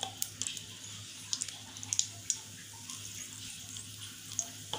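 A bay leaf and whole spices frying in hot oil in a kadai: faint sizzle with scattered small crackles and pops at irregular moments.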